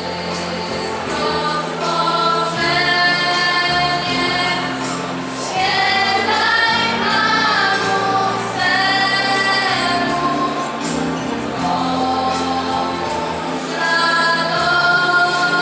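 Choir singing a Polish Christmas carol (kolęda) in long held notes, the chords changing every second or two.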